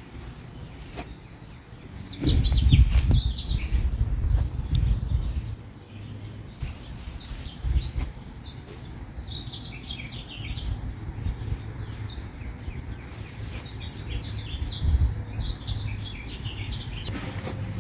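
Wild songbirds chirping and twittering in scattered clusters of short high notes. A loud low rumble on the microphone from about two to five seconds in.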